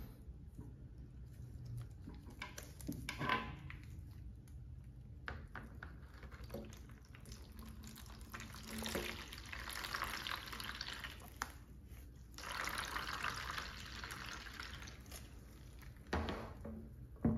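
Old electrolyte pouring out of the open cell holes of an upside-down lead-acid car battery and splashing into a plastic tray, in two spells of a few seconds each from about halfway through. Before that, a few light knocks as the battery is handled.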